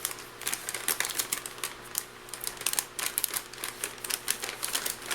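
MRE plastic packaging crinkling and crackling in irregular bursts as it is handled, with a faint steady hum under it.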